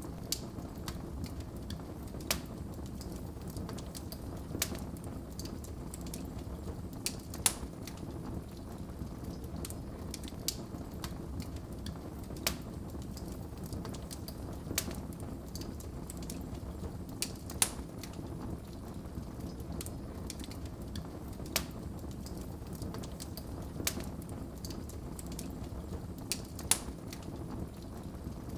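Wood fire in a fireplace crackling, with irregular sharp pops every second or two over a steady low rumble.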